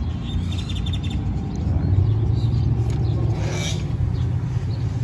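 A bird chirps in a quick, repeated trill in the first second, over a steady low rumble. A short hiss comes about three and a half seconds in.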